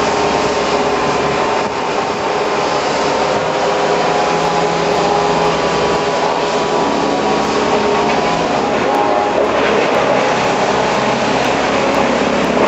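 Heavy machinery's engine running steadily and loud at a tree removal, a continuous mechanical drone.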